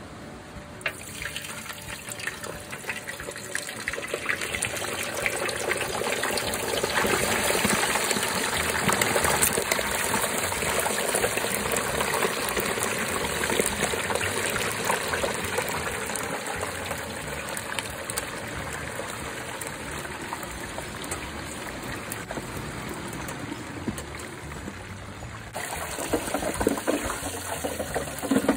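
Hot oil bubbling and sizzling hard in a propane turkey fryer as a whole turkey goes into it, swelling over the first several seconds and then slowly easing. Near the end the sound changes abruptly to a choppier sizzle as the fried turkey is lifted out of the oil.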